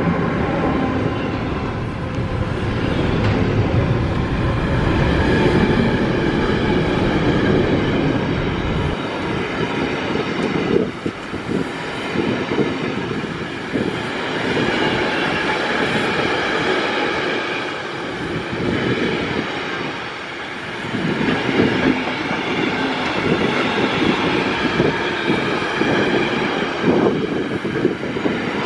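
A train running past on the track, its wheels clattering steadily over the rails. A deep low hum under it drops away about nine seconds in.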